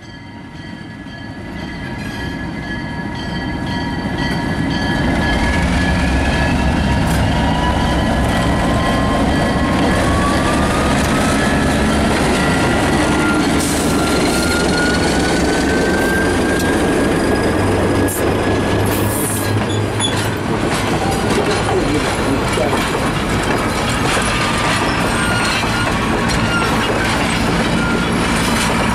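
Alco RS-1 diesel locomotive approaching and then passing close by, its six-cylinder engine running loud and growing louder over the first few seconds. Passenger coaches then roll past, their wheels clattering on the rail joints. A high wheel squeal rises in pitch in the middle and then fades.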